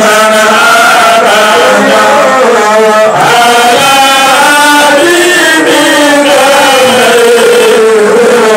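Men's voices chanting in unison, a loud, unbroken melodic line that wavers in pitch.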